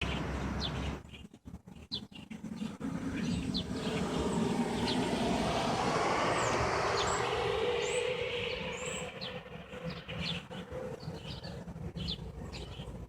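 Many small birds giving short, high chirps throughout, while a vehicle passes by: its noise swells from about three seconds in, peaks in the middle and fades away near the end.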